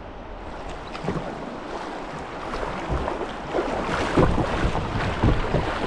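River water rushing and splashing around a kayak on the move. The splashing grows louder and more frequent about halfway through.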